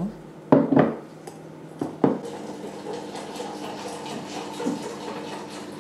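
Wire whisk clinking against a glass mixing bowl, two pairs of knocks in the first two seconds, then hot milk poured in a thin, steady stream from a saucepan into the bowl while it is whisked into egg yolks.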